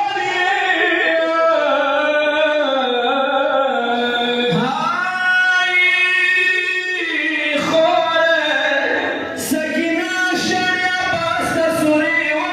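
Unaccompanied voice chanting a mourning lament in long held notes that glide slowly between pitches.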